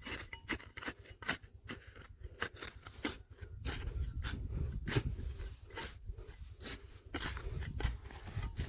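Digging tool scraping and clicking through rocky river gravel, an irregular run of sharp scrapes and clicks several times a second over a low rumble.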